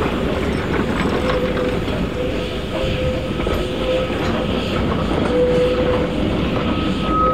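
NZR Ab class steam locomotive hauling its carriages under steam: a steady, loud run of locomotive and wheel-on-rail noise. A thin steady tone comes and goes throughout, and a higher one joins near the end.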